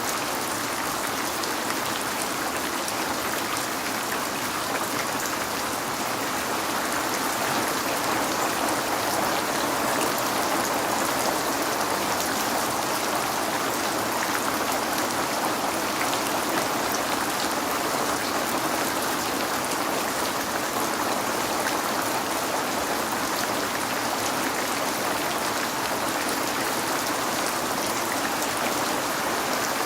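Heavy rain falling steadily on a window, a dense, even hiss with fine patter of individual drops.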